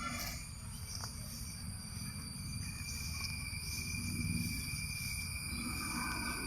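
Steady, high-pitched chorus of insects such as crickets or cicadas, several tones at different pitches sounding together, with another joining about a third of the way in. A low rumble runs underneath.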